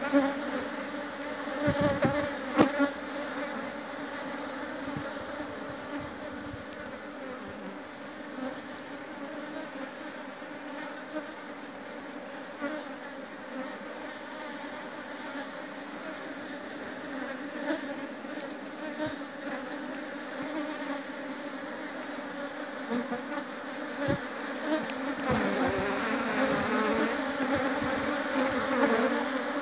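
A mass of honeybees buzzing over an opened hive: a steady, dense hum that grows louder over the last few seconds. A couple of sharp knocks sound about two seconds in.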